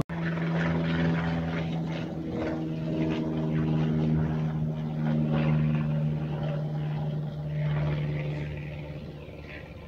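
Light helicopter in flight, a steady engine-and-rotor drone that slowly fades near the end, with wind rumbling on the phone microphone.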